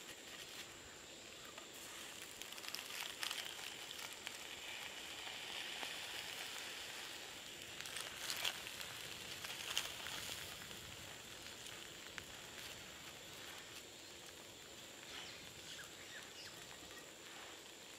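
Charcoal and a leaf-wrapped mackerel sizzling softly in a cast-iron skillet while metal tongs shift the coals. The hiss swells in the middle, and there are a few sharp clinks of the tongs on charcoal and pan, the loudest near the middle.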